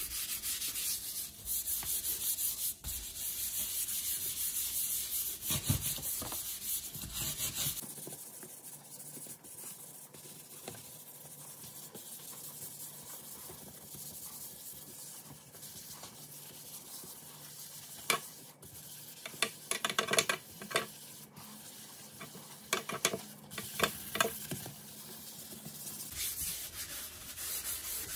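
A wet dish sponge scrubbing Comet bleach cleanser powder over a porcelain sink: steady, gritty rubbing strokes. It is louder for the first several seconds, then quieter, with a few sharp clicks in the second half.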